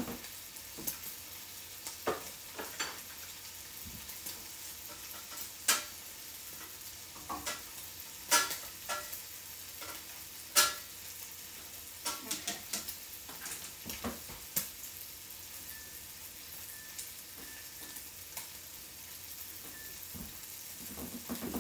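Diced pancetta sizzling in a skillet, a steady frying hiss, with scattered sharp clinks and knocks from a utensil stirring pasta in a pot.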